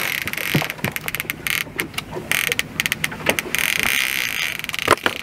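Steady hiss with scattered small knocks and clicks of gear being handled aboard a boat, and one sharper click near the end.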